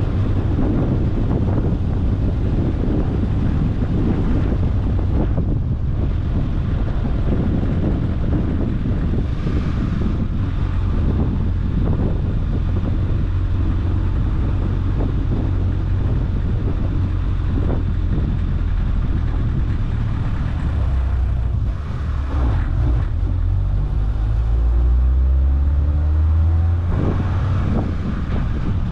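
A car driving on a road: steady low engine and road rumble with wind noise, and a deeper engine drone swelling in the second half.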